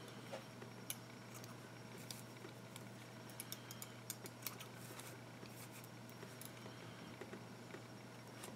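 Small scissors snipping cotton wick, heard as faint, irregular snips and clicks that come thickest around the middle.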